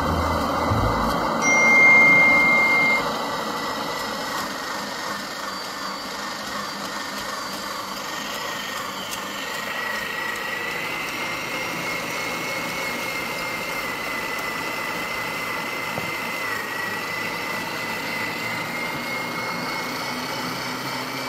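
Electric meat grinder running steadily with a thin, high motor whine as it grinds crackers into crumbs. It is loudest about two seconds in.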